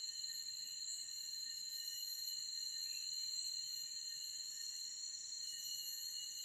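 Steady, high-pitched chorus of insects shrilling without pause, with a few faint short chirps about one and three seconds in.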